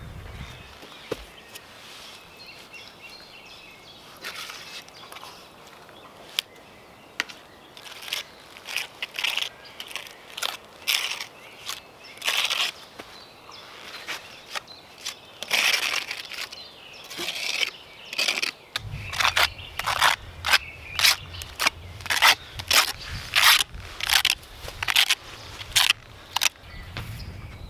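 A small trowel scooping thick black mastic from a bucket and scraping it across the top of a concrete foundation pad: a run of short scraping strokes, about two or three a second, growing louder and quicker in the second half.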